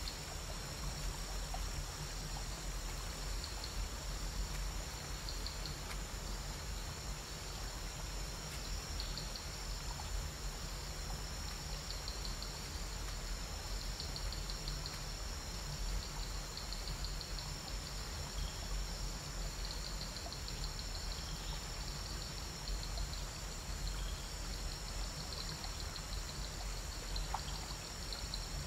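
Waterfall pouring steadily into a pool, a constant rush of water. Over it, insects keep up a steady high shrill, with bursts of rapid chirping trills.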